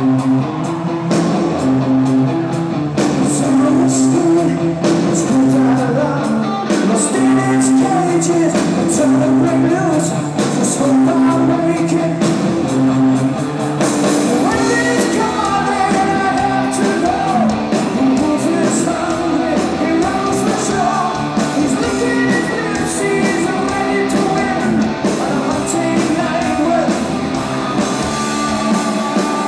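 Live hard rock band playing loudly: distorted electric guitars, bass guitar and drum kit driving a repeated riff, with a man singing over it, most clearly about halfway in and after.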